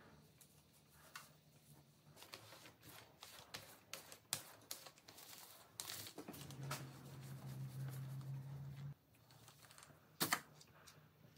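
Faint handling sounds of spreading contact cement with a small paint roller: light clicks and crinkles from the foil-lined tray and roller. A low steady hum runs for about three seconds past the middle, and one sharp click comes near the end.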